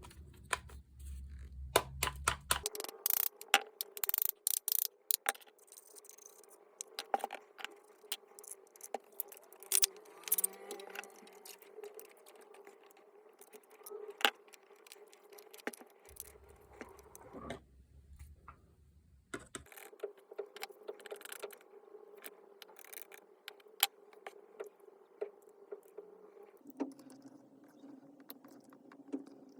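Small metal parts of a Makita JR3070CT reciprocating saw clinking, tapping and scraping as it is handled during disassembly, a quick flurry of sharp clicks near the start and then scattered clinks.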